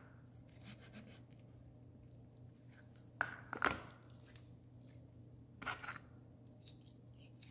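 Faint sounds of a knife cutting raw rabbit meat along the tailbone on a plastic cutting board while the back leg is pulled free, with a few short sharp sounds about three seconds in and again near six seconds.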